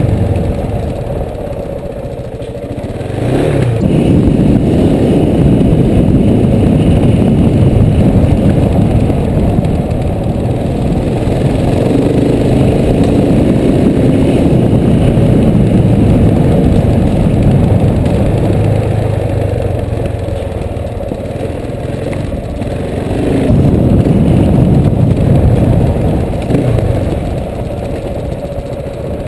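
Motorcycle engine running under a dense low rumble while riding a gravel road. The engine swells with throttle about three and a half seconds in and again about twenty-three seconds in, easing off in between.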